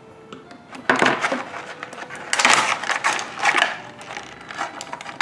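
Plastic toy packaging being crinkled and crushed in handling, in irregular noisy bursts starting about a second in.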